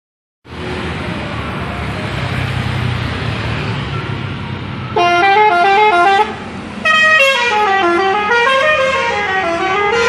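Street traffic noise, then about five seconds in a Daihatsu Sirion's telolet horn, an aftermarket multi-tone musical horn, plays a fast warbling run of notes, stops briefly, and starts again with a tune that slides down and up in pitch in waves.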